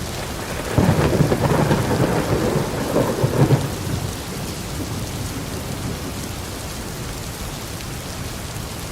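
Rain sound effect: steady rainfall with a rumble of thunder from about a second in, dying away after about three seconds and leaving the even hiss of rain.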